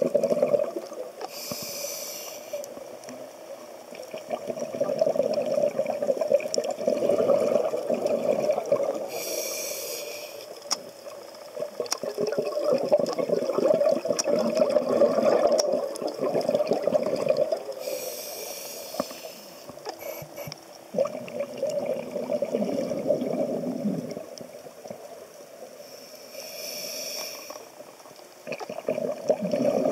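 Scuba diver breathing through a regulator: four short hissing inhalations about eight seconds apart, each followed by several seconds of bubbling exhaust as the breath is let out.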